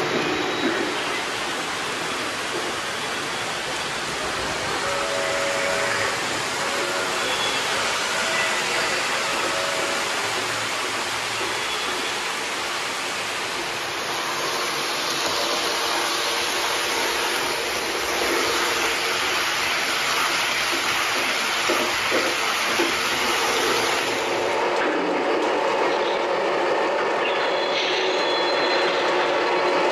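O gauge model trains, including the Lionel Polar Express high-speed set, running on three-rail track: a steady rolling rush of wheels on rails, with a few held tones from the locomotives' onboard sound. The sound changes abruptly about twenty-five seconds in, losing much of its hiss.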